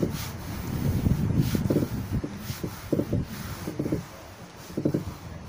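A palm rubbing and pressing a freshly spray-glued vinyl sheet flat against a stone slab, in irregular scuffing strokes. Wind buffets the microphone underneath.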